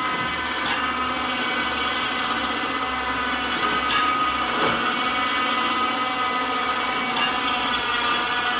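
Battery-powered electric garage winch running under load as it pulls a car, a steady motor-and-gear whine with a few sharp clicks.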